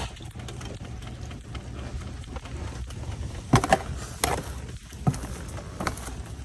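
Several sharp crunches of footsteps on ice-glazed ground from about three and a half seconds in, over a steady low hum.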